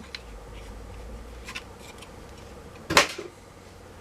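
Handling noises at a workbench during a battery-pack teardown: faint clicks and rubbing, then one loud, sharp clack about three seconds in as something hard is set down or dropped.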